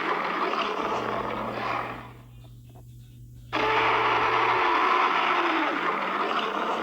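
Spinosaurus roar sound effect: a long, harsh roar that fades away about two seconds in, then after a short pause a second roar starts abruptly and carries on.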